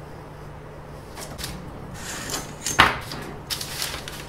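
Paper and rulers being handled on a wooden workbench: rustling and scraping, with one sharp knock a little under three seconds in, over a low steady hum.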